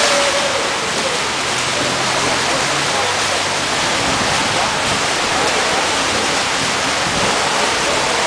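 Several swimmers splashing as they race front crawl, a steady rush of churning water that echoes around an indoor pool hall.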